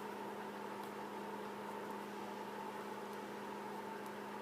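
A steady hum of several fixed tones, even in level, with no other clear sound.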